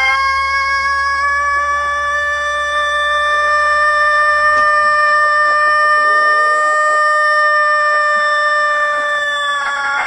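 Rooster crowing, holding one unbroken siren-like note at a nearly steady pitch for about ten seconds, sagging slightly lower near the end.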